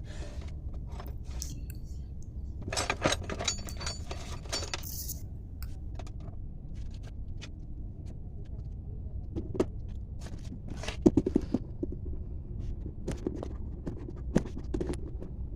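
Metal tools and parts clinking and scraping as they are handled, in scattered sharp clicks with two busier clusters, over a steady low hum.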